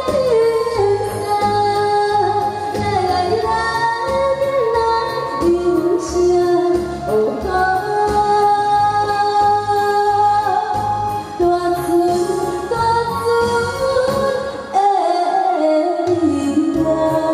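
A woman singing into a handheld microphone over an instrumental backing with a steady beat; the bass and beat drop out briefly near the end.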